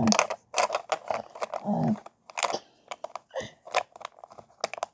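Lego plastic bricks clicking and snapping as a small Lego puzzle is handled and pulled apart: a run of sharp, irregular clicks, with a brief hum of voice about two seconds in.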